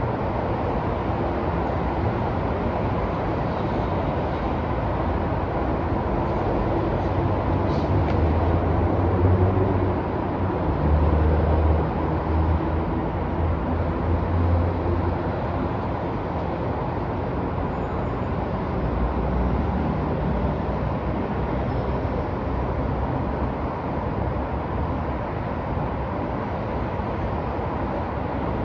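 Downtown city street ambience: steady traffic noise, with a heavy vehicle's low rumble swelling and passing between about 8 and 15 seconds in.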